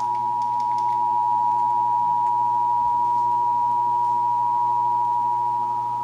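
Emergency Alert System two-tone attention signal, its 853 Hz and 960 Hz tones sounded together as one loud, steady, piercing tone that starts abruptly.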